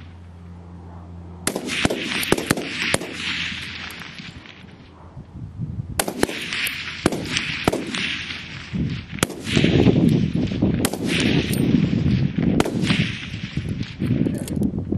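Centrefire target rifles firing a rapid-fire string along a firing line: many sharp shots at uneven spacing, some nearly overlapping, each trailed by a short echo.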